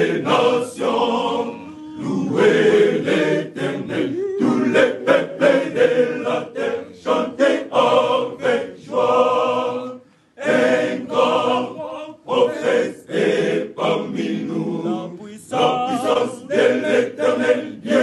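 Men's church choir singing together in harmony. The singing breaks off for a moment about ten seconds in, then carries on.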